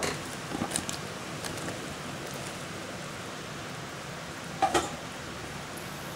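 Spiced coconut milk boiling in a pan, a steady bubbling hiss, with a few soft clicks in the first second as sliced mushrooms are tipped in from a bowl. A single short knock comes about four and a half seconds in.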